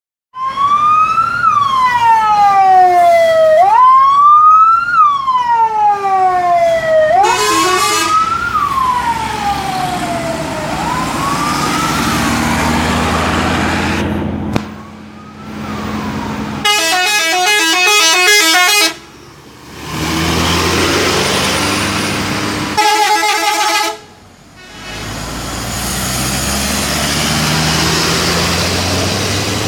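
Indonesian bus 'telolet' horns: first a siren-like wail that sweeps up and then slowly down, repeating about every three and a half seconds. After a cut come two short blasts of the rapid multi-tone telolet horn melody, one about 17 s in and one about 23 s in. A bus engine runs steadily between and after them.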